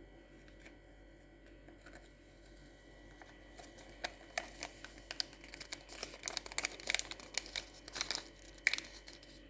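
Plastic drink-mix sachet crinkling and crackling in the hands as it is emptied. The crackles come in irregular bursts, starting about three and a half seconds in and growing busier toward the end.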